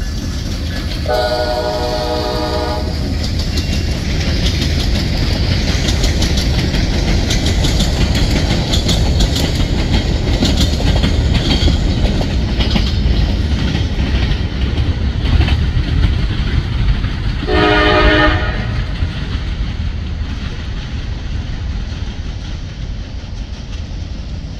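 CSX freight train rolling past, the cars' wheels rumbling and clacking over the rail joints. The locomotive's horn sounds in blasts: once about a second in for a couple of seconds, again shortly for about a second about three-quarters of the way through, and once more starting at the end.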